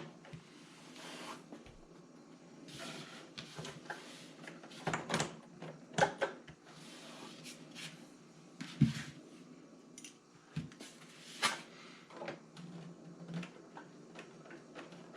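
Hard knocks and clacks from an RC truck being handled and turned around, several sharp ones spread through, with soft rubbing and shuffling in between.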